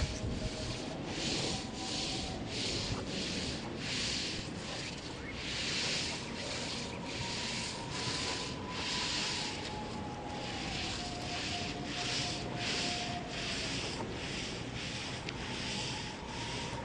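Twig broom sweeping a stone surface in steady, repeated strokes, about two a second.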